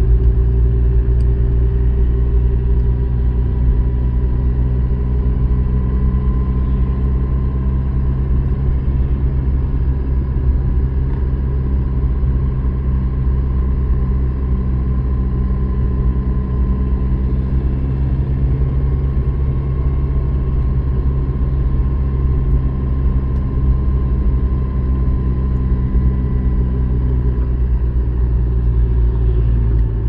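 A car driving along at a steady speed: a constant low rumble of engine and road noise with a faint even hum running through it.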